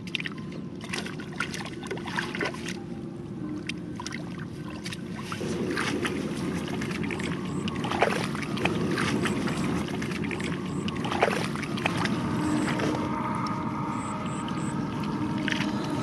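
Hands splashing and sloshing in shallow muddy water while catfish thrash, a string of short sharp splashes and slaps, two of them louder, about halfway through and again about three seconds later.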